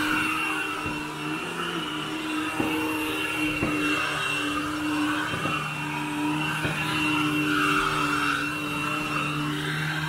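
Royal commercial upright vacuum cleaner running on carpet, with a steady high motor whine. Its rushing sound swells and fades as it is pushed and pulled, and there are a few scattered clicks.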